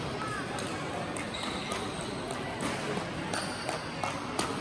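Many people chattering in a large sports hall, with a few light sharp taps in the second half.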